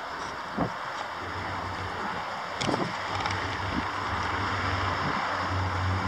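Wind buffeting the microphone, with a low rumble building slowly underneath. A few short knocks of camera handling come through.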